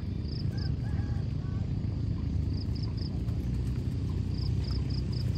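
Outdoor ambience: a steady low rumble with faint, high, short chirps repeating in small groups of two to four, and a few faint short calls in the first second or so.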